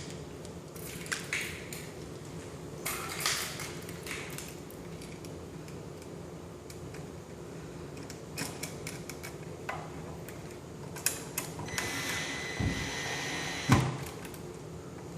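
Handling noises as a light switch is fitted back into its wall box: scattered light clicks and taps with short scraping stretches, and a longer scraping stretch near the end that finishes in a sharper knock. A steady low hum runs underneath.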